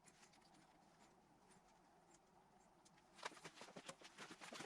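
Near silence, then from about three seconds in a run of faint, light clicks and taps of small engine parts being handled, as the lower timing cover is fitted with its bolts and rubber washers.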